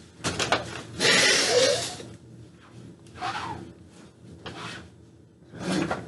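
Paint sponge rubbed across a refrigerator door in a few short scrubbing strokes, the longest and loudest about a second in.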